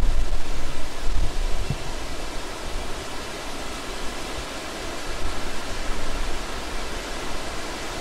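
Forest stream flowing: a steady rushing of water. Low rumbling gusts and a higher level in the first two seconds ease off after that.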